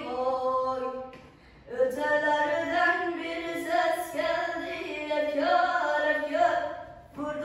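A boy singing solo and unaccompanied, a slow melody of long held notes, with a breath break about a second in and another near the end.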